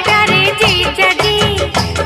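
Hindi film song music with a steady beat.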